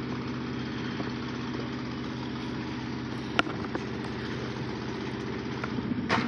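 An engine running steadily at a constant speed, with one sharp knock about three and a half seconds in.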